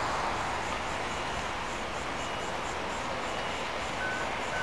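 Steady outdoor rumble of distant traffic, with a faint short beep about once a second from a vehicle's reversing alarm; the beep drops lower in pitch near the end.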